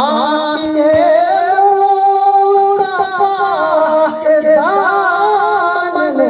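A naat sung by a young male voice into a microphone. It holds long notes that waver and glide between pitches, with no pause.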